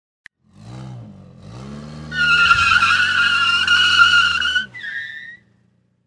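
A car peeling out: a brief click, then the engine revs up twice with rising pitch, then the tyres squeal loudly and steadily for about two and a half seconds. The squeal cuts off and a second, shorter tyre chirp rises in pitch before the sound stops.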